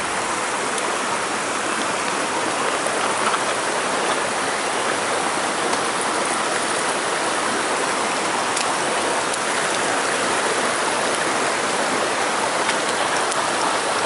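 Shallow stream running over rocks with small cascades: a steady rushing of water.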